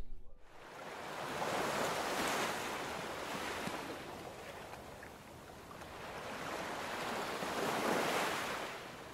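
Sea waves washing onto the shore, swelling and fading twice.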